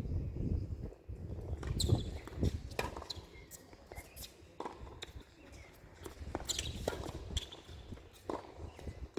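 Footsteps and scattered sharp knocks on a tennis court, about a dozen, irregularly spaced, over a steady low rumble.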